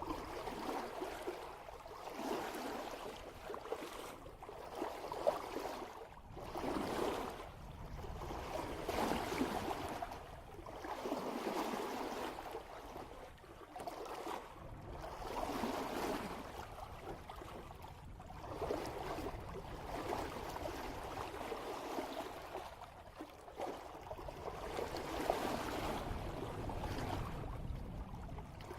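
Water rushing and splashing along a sailboat's bow as it sails at about 3 knots, swelling and easing every couple of seconds as the hull meets each swell.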